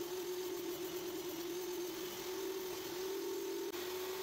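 Hercules sliding miter saw with a 10-inch blade running steadily while making shallow depth-stop cuts into a board: a steady motor hum over an even hiss.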